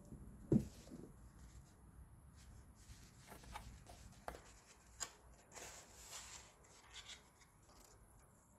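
A sneaker set down on a cardboard shoebox with a soft thump, then light rustling and scraping of a paper envelope being handled.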